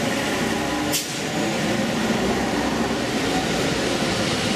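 Vintage London double-decker buses' diesel engines running as the buses pull along a wet street, a steady engine drone under road and tyre noise, broken by a short cut about a second in.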